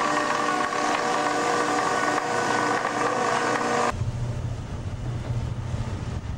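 Deck winch hauling a longline black cod trap aboard: a steady mechanical whine with several held tones over noise. About four seconds in it cuts off abruptly to a quieter low, steady rumble with wind noise.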